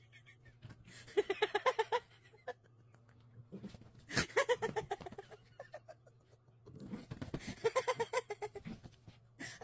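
A woman giggling in three short runs of quick, high-pitched laughs: about a second in, around four seconds in, and again near the end.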